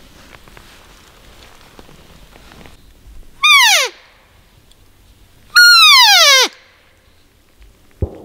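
Handheld elk cow call blown twice: two loud mews, each falling steeply in pitch. The first is short and the second about a second long. A brief knock near the end.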